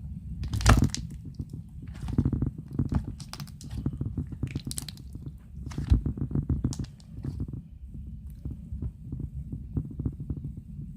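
Slime being squished and kneaded by hand: dense runs of small pops and clicks from trapped air, with a few louder squelches, the loudest about a second in.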